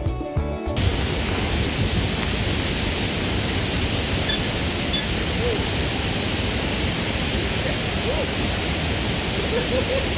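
Waterfall running steadily, a dense, even rush of falling water; a music track cuts off in the first second.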